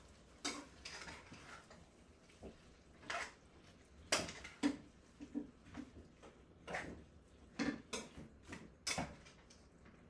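Pots, lids and cooking utensils being handled: a string of irregular clinks and knocks, about ten of them, some with a short ring.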